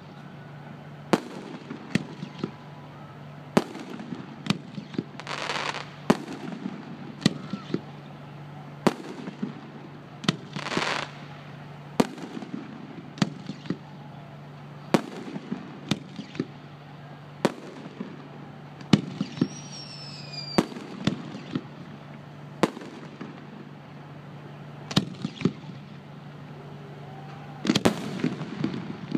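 Aerial fireworks shells bursting, a sharp bang every second or so with a couple of longer hissing bursts, and a dense run of bangs near the end. A steady low hum sits underneath.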